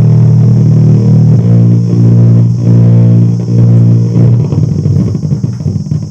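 Music played through a 2.1 home theater's subwoofer, loud and heavy in the low bass. The bass is not clear, which the technician puts down to a faulty amplifier IC in the subwoofer section.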